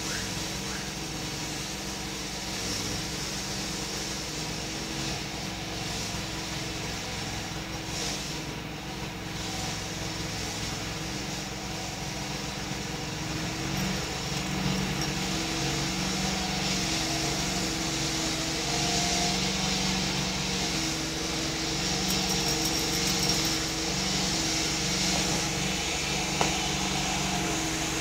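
Steady mechanical hum with a low buzz, growing a little louder about halfway through.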